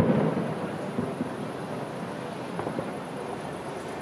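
Aerial firework shell bursting: the rolling boom of a burst fading over the first second, a smaller bang about a second in, then a low rumbling that carries on.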